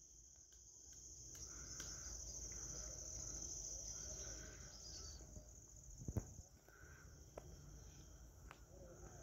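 Crickets chirring in a faint, steady high trill that weakens after about six and a half seconds, with a single sharp knock just after six seconds.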